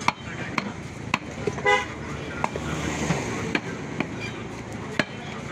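Butcher's cleaver chopping beef on a wooden log chopping block, sharp knocks roughly one or two a second. A short vehicle horn toot about one and a half seconds in is the loudest sound.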